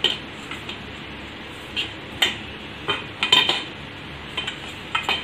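Fingers rubbing oil into flour in a stainless steel bowl: a soft rustle broken by about ten short, sharp metallic clinks and taps against the bowl, unevenly spaced.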